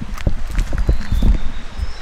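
Footsteps of a person walking with a handheld camera, a run of irregular heavy low thuds with handling noise on the microphone.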